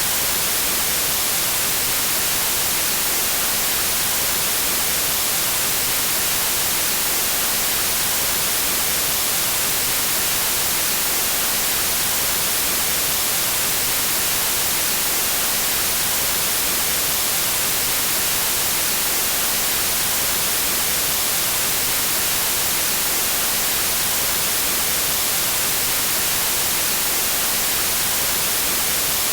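Pure white noise: a steady, even hiss, brightest in the treble, with no change in level.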